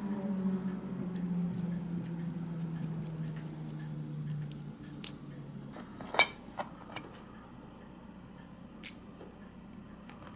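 Small sharp clicks and taps of Matchbox model parts being handled and pressed together, scattered over the second half, the loudest about six seconds in. Before them a low humming tone slowly drops in pitch and fades out a little before halfway.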